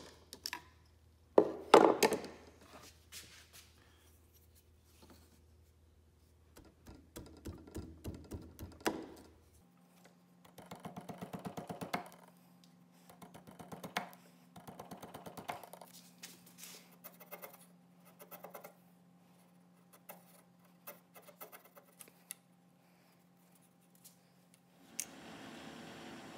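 Utility knife scoring and scraping thin brass plate in repeated short strokes, coming in several bursts of quick scratchy ticks. The loudest scrape is about two seconds in. A low steady hum runs through the middle, and a steady hiss comes near the end.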